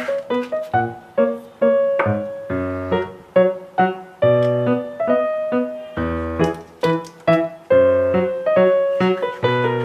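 Background music: a light keyboard tune in a piano sound, struck notes following one another at a lively, even pace.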